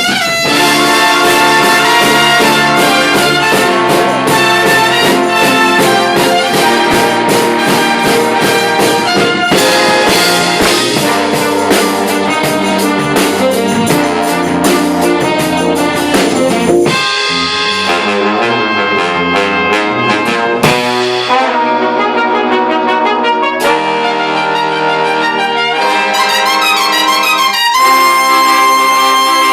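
Big band playing jazz: trumpets and trombones over a steady drum beat. About halfway through, the beat drops out and the band moves to held brass chords with short breaks between them.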